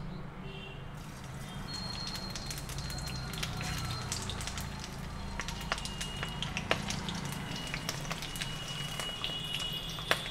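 Vegetables frying in hot oil in a pan, with scattered sharp crackles and spits over a steady low hum.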